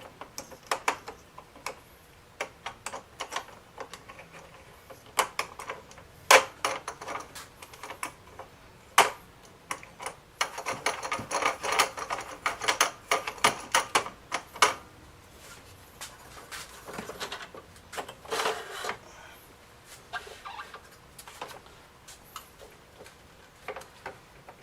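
Plastic gun-vise parts being handled and pulled apart: irregular clicks and clacks, with a stretch of rapid crackling about halfway through and a shorter one later.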